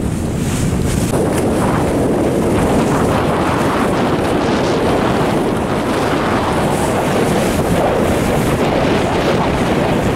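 Strong wind buffeting the microphone, steady and loud, over choppy water splashing and rushing past the boats.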